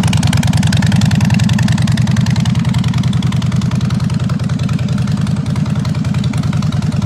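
Harley-Davidson Breakout's V-twin engine idling steadily through a Blow Performance aftermarket exhaust, a loud, even, low-pitched pulsing.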